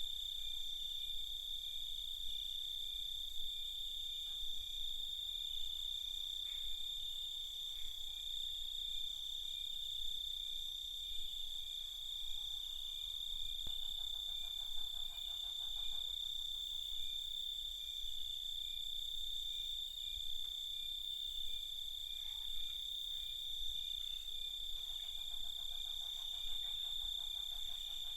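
Crickets chirping steadily in a continuous high-pitched chorus, with fainter insect calls higher still. A lower, rapidly pulsing call joins about halfway through and again near the end.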